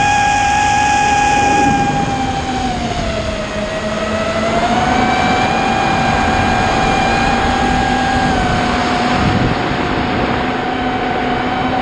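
FPV racing quadcopter's brushless motors whining at a steady high pitch. The pitch sags about three seconds in as the throttle eases, then climbs back and holds.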